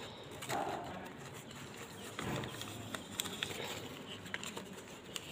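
Newspaper rustling and crinkling as it is unwrapped by hand from plant cuttings, with a few short sharp ticks in the second half.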